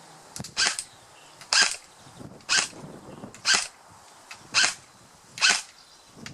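A dog barking repeatedly, single barks evenly spaced about once a second.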